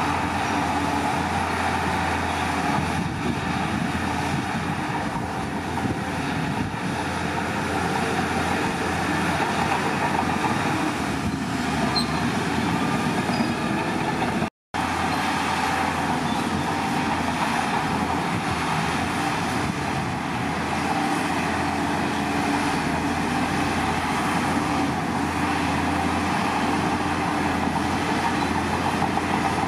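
Heavy diesel earthmoving machinery running steadily, with a constant low engine note, broken by a split-second dropout to silence about halfway through.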